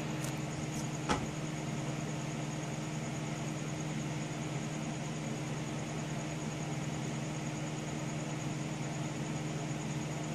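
Steady hum of a desktop computer running while it boots from a restore disc, with a single click about a second in.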